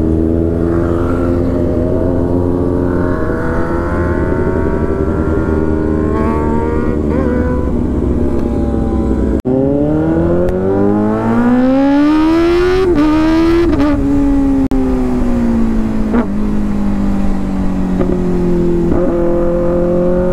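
Kawasaki ZX-6R inline-four running through an aftermarket exhaust with its dB killer removed, very loud, on the move. The revs hold fairly steady, then climb steeply about halfway through with brief breaks at gear changes, before easing to a steadier cruise.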